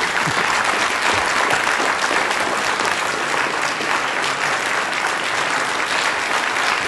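Large audience applauding steadily, a dense, even clatter of many hands clapping.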